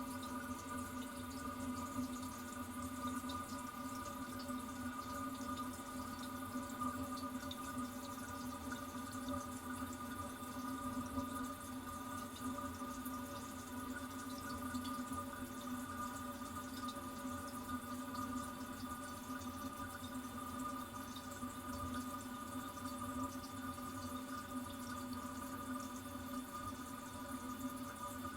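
Toilet cistern refilling after a flush: water running in steadily with a hiss and a steady whistling tone, and small drips.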